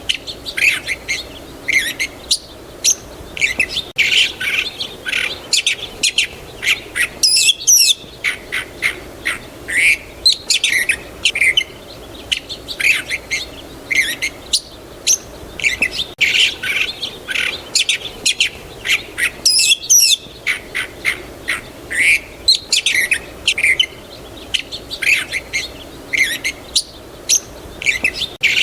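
A chorus of songbirds chirping and trilling in quick, overlapping calls over faint steady background noise. The same stretch of calls seems to come round again about every twelve seconds.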